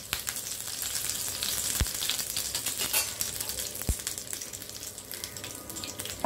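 Fresh curry leaves sizzling and crackling in hot oil in a pan, with a few sharper pops from the spattering oil; the sizzle eases off a little toward the end.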